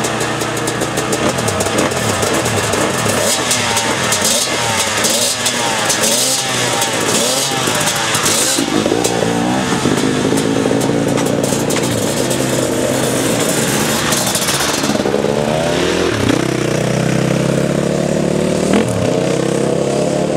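Several enduro dirt-bike engines idling and revving at a start line, the throttle blipped again and again so the pitch sweeps up and down. Later, motorcycles ride the dirt track, engine pitch rising as they accelerate, with a couple of short dips at gear changes.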